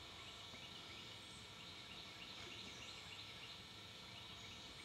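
Faint outdoor ambience: a steady high insect drone with a run of faint, quick repeated chirps, about three a second.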